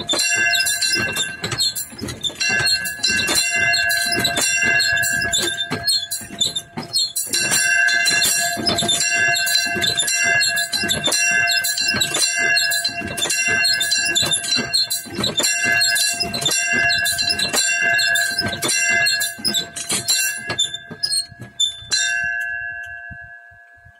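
Small hand-rung bronze chapel bell swung by a chain, its clapper striking about twice a second in a steady peal. Near the end the strikes stop and the last ring fades away.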